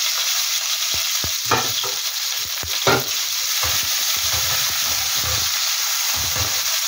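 Sliced onion and green pepper sizzling in hot oil in a frying pan, with a steady hiss. A wooden spoon stirs them, scraping and knocking against the pan, with two sharper knocks in the first three seconds.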